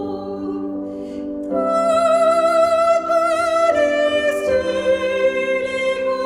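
Choir singing held chords with vibrato, the harmony changing a few times and growing louder about one and a half seconds in.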